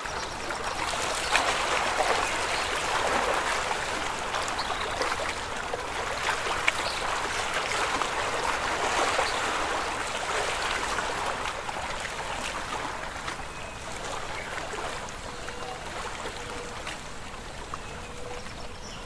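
Shallow water babbling and trickling, with small splashes, slowly getting quieter.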